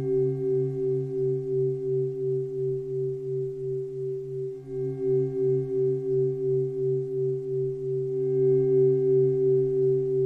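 Meditation drone of a few held low tones, wavering evenly about three times a second in a singing-bowl-like sound. It dips briefly about four and a half seconds in and then swells again.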